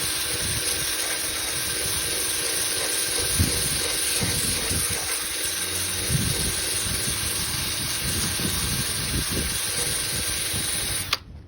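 Power sander running steadily as it sands an inflatable-boat repair patch, a constant high hiss with an even hum under it, scuffing the fabric to take glue. It shuts off suddenly near the end.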